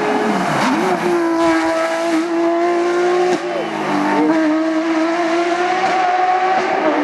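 Porsche 911 GT3 rally car's flat-six engine running hard, its pitch falling and climbing again several times as the driver shifts gears and lifts off and back on, with a quick dip and rise just past the middle.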